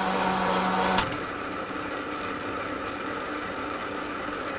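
Metal lathe running during a spring (finishing) pass on a multi-start screw thread. A steady low hum ends with a sharp click about a second in, and the machine then runs on steadily.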